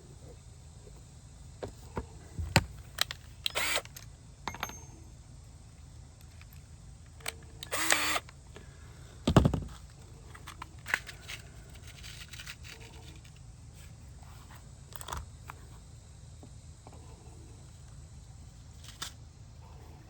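Scattered clicks and knocks of hands handling wooden panels and parts, with a short noisy sound about eight seconds in and a dull thump just after.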